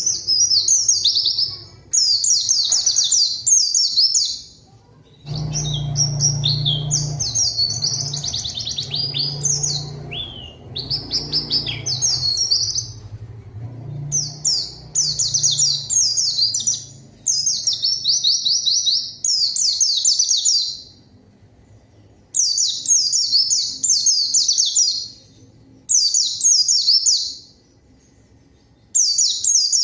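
White-eye (pleci) singing in fast, high twittering bursts of a second or three each, with short pauses between: the full, vigorous 'gacor' song used to provoke other white-eyes into singing. A low hum runs under the song from about five to fourteen seconds in.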